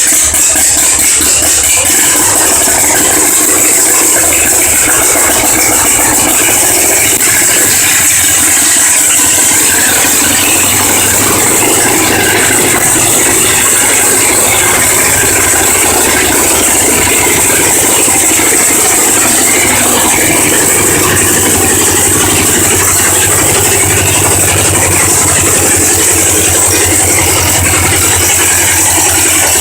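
A farm tractor engine running loud and steady, with no break, and a lower steady drone coming in more strongly about a third of the way through.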